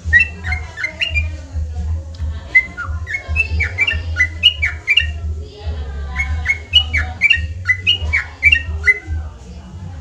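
Yellow-vented bulbul (trucukan) singing: quick runs of bubbly, sweeping whistled notes in three phrases, with short pauses after the first second and around the middle.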